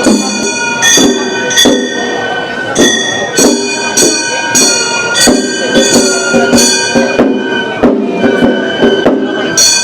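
Gion bayashi festival music: a high bamboo flute holds and steps through a melody over repeated clanging strikes of small brass hand gongs (kane), about one or two strikes a second, with drum.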